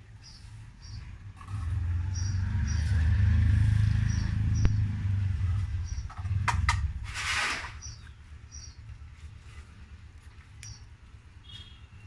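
Budgerigars giving short, high, repeated chirps, about two a second. A loud low rumble swells about a second and a half in and dies away by about eight seconds in. A few clicks and a brief hiss come near seven seconds.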